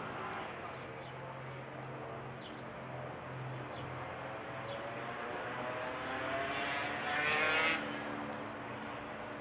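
Road traffic: a passing vehicle's engine rises steadily in pitch as it accelerates, growing louder toward the end before dropping away suddenly, over a steady hum of street noise.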